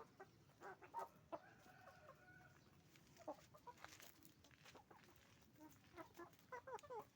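Chickens clucking faintly, with bursts of short quick calls. One drawn-out call comes from about a second in and lasts about a second.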